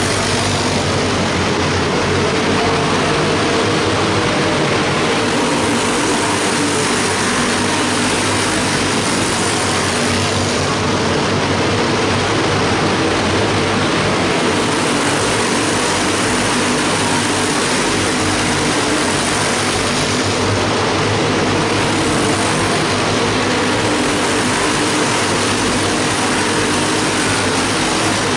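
Several small race-car engines running together as the cars lap the track, a steady, unbroken drone of overlapping engine notes inside a large arena.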